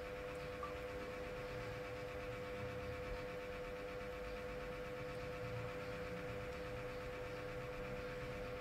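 A steady hum holding one constant tone, with weaker steady overtones over faint background noise, unchanging throughout.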